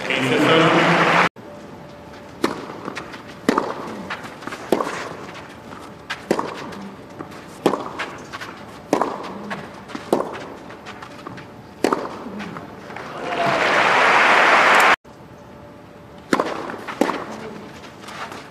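Tennis ball being struck back and forth in a baseline rally, one sharp racket hit about every second and a bit. Near the end of the point, crowd applause swells loud and is cut off suddenly, then a new rally begins with more hits. A brief burst of crowd noise at the very start also cuts off suddenly about a second in.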